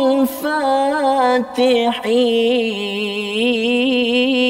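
A man chanting a Quran verse in the melodic recitation style. About two seconds in he settles into one long held note with a wavering, ornamented pitch, drawing out a word of the verse.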